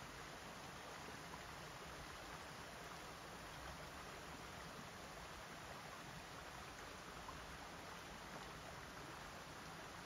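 A small mountain stream running over a low weir: a faint, steady rush of water.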